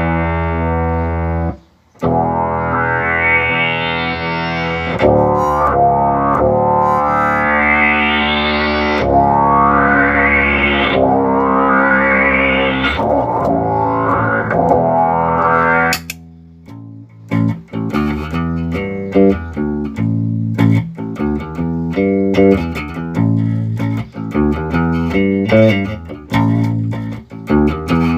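Bass guitar played through an Electro-Harmonix Bass MicroSynth synth pedal, working again after repair of overvoltage damage. Held notes with the filter sweeping upward about every two seconds, then from about halfway, short, choppy plucked notes.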